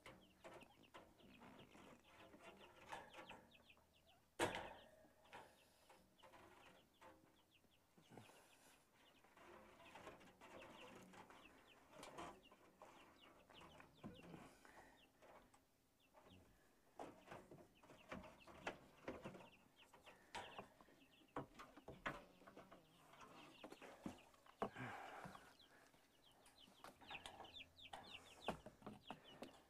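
Faint clucking of chickens, with scattered light taps and scrapes and one sharper knock about four and a half seconds in.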